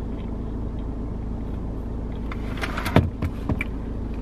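Steady low hum of a car's engine heard from inside the cabin, with a few sharp clicks and a thump about three seconds in.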